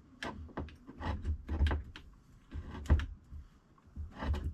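Myford ML7 lathe apron being worked by hand, its half-nut lever being opened and closed to find where the half nuts engage the leadscrew. Irregular clicks and knocks, the loudest about three seconds in.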